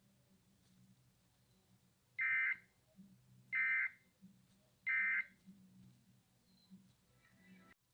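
Emergency Alert System SAME data tones: three short, shrill electronic screeches about a second and a half apart.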